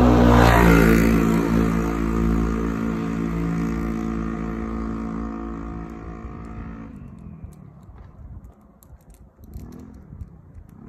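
A motor vehicle's engine passing by, loudest about half a second in with a slight drop in pitch, then fading away over the next six seconds. Faint small clicks follow once it has gone.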